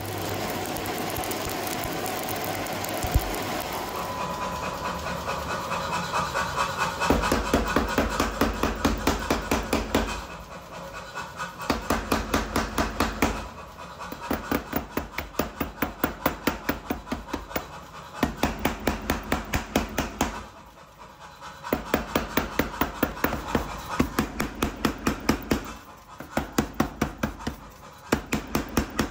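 Steel being forged with rapid, evenly spaced hammer blows, about four a second. The blows come in runs of a few seconds with short pauses between them. Before the first blows, for the first several seconds, there is a steady rushing noise.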